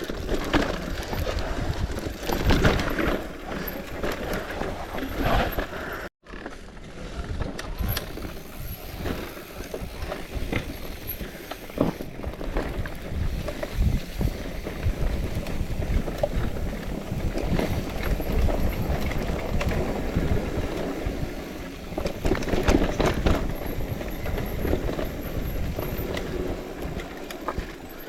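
Bicycle being ridden over rough dirt trail: a steady rush of tyre and wind noise with irregular rattles and knocks from the bike. The sound drops out briefly about six seconds in.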